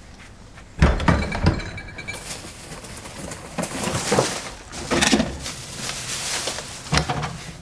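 A thump and a squeaky creak, like a door, then rustling and knocks as a household fridge is opened and searched through, with another knock near the end.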